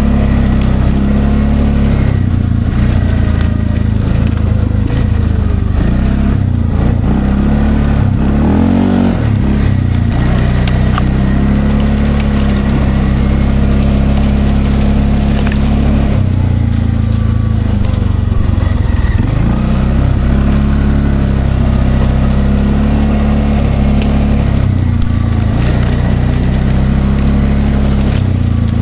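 Linhai Landforce 550L ATV engine running under way, its revs rising and falling as the throttle changes, with a few clear dips and climbs in pitch.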